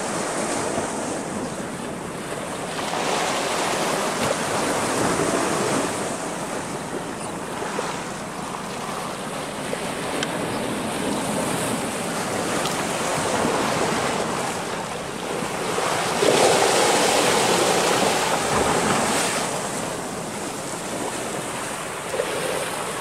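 Sea waves washing and breaking against a rocky shoreline, a steady rushing surf that swells louder a few seconds in and again about two-thirds of the way through.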